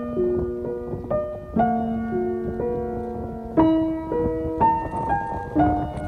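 Background piano music: slow, gentle notes and chords, a new one struck about every second and left to ring.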